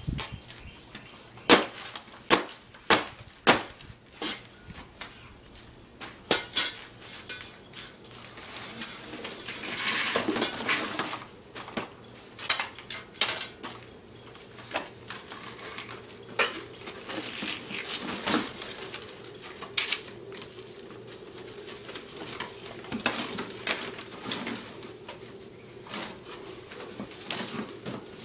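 Metal shovel blade smashing a cardboard box on concrete, with a quick run of sharp clattering hits in the first few seconds, then cardboard tearing, crumpling and scraping with scattered knocks.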